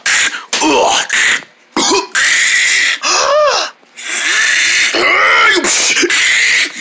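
A person making fight sound effects with the mouth: a run of loud vocal bursts, each rising and then falling in pitch, with short breaks between them.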